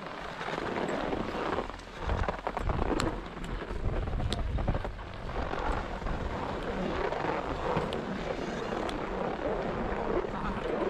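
Wind rushing over the camera's microphone while skiing downhill, with the hiss of skis running over snow: a steady, unbroken noise with a deep rumble.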